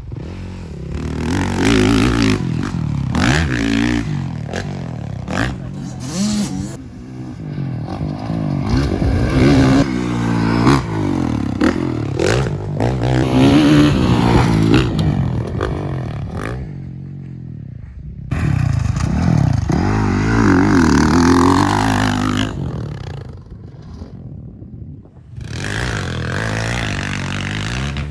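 Motocross dirt bike engines revving hard, pitch climbing and falling again and again with the throttle and gear changes, with rough scraping noise over them. The sound drops away abruptly twice, in the middle and later on.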